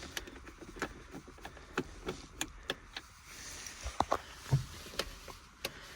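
Irregular light clicks and small knocks of plastic interior trim and screws being worked loose by hand inside a car, with a soft low thump about four and a half seconds in.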